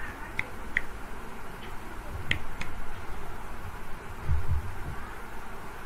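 Light, sharp clicks in two pairs, about two seconds apart, typical of a computer mouse button being pressed and released. They sit over steady background noise, and a couple of dull low thumps come about four seconds in.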